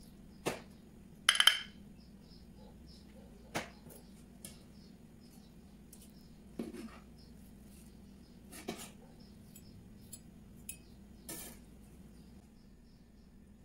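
Scattered clinks and knocks of small metal bowls, cups and utensils being handled and set down on a stainless steel worktop and around a stone molcajete. The loudest is a ringing metallic clink about a second and a half in. A faint steady hum sits underneath.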